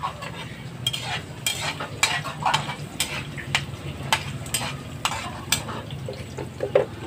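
Metal spatula clinking and scraping against a wok-style pan as chopped onion is stirred and sizzles in hot oil, with repeated sharp clinks at irregular intervals over a steady low hum.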